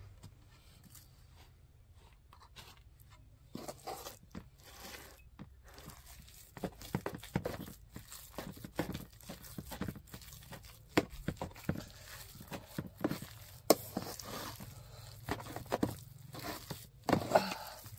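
Metal spoon stirring a thick, wet mixture of grated vegetables and shredded meat in a metal bowl: squelching, with irregular clicks and scrapes of the spoon against the bowl. Sparse for the first few seconds, then busier.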